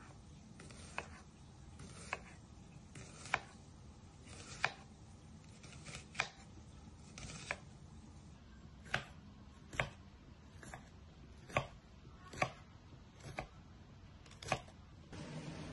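Chef's knife slicing through an onion and then a red pepper, each cut ending in a sharp tap of the blade on the cutting board. The taps come about once a second, a little faster in the second half.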